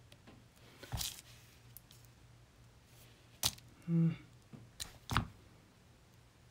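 Sharp clicks and taps of TWSBI Mini fountain pen parts being handled and set down on a hard tabletop, three of them, about one, three and a half and five seconds in, with a short pitched sound just before four seconds.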